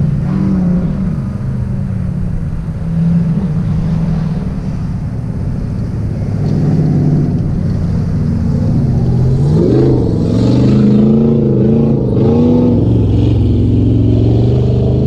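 2021 Toyota Tacoma TRD Off Road's engine running in four-wheel-drive low while driving off road, steady at first, then its pitch rising and falling in a series of revs about two-thirds of the way through.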